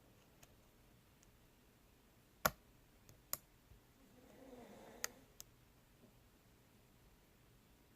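A few sharp, sparse metallic clicks of lock picks working the pins of an ASSA Ruko 2 lock core, the loudest about two and a half seconds in, then others near three and a half and five seconds, with a soft rustle between.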